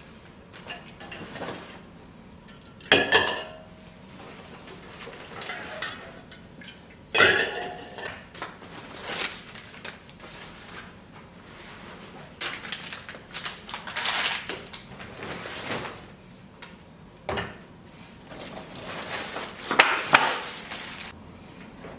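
Kitchenware being handled: dishes and utensils clinking and knocking now and then, with short clatters about 3, 7 and 20 seconds in.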